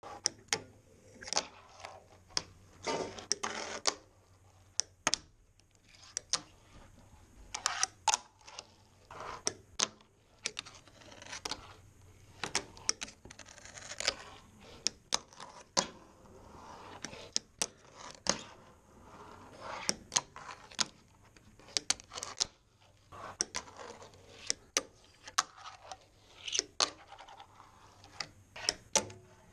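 A fingerboard, a miniature skateboard, ridden with two fingers on a plywood surface: sharp clacks as the board's tail pops and the board lands, repeated over and over, with short stretches of its wheels rolling across the wood between them.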